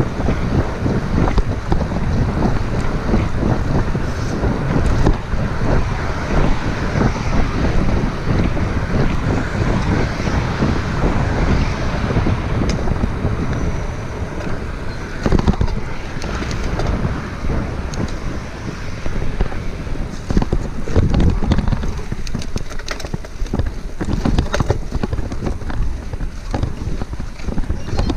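Wind rushing over the action camera's microphone as a gravel bike rolls at speed along a wet road, with tyre hiss underneath; a steady, heavy rumble that turns more uneven in the second half.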